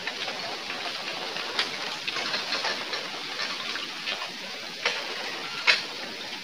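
Steady rushing outdoor noise with a few sharp clicks: one about a second and a half in, and two louder ones near the end.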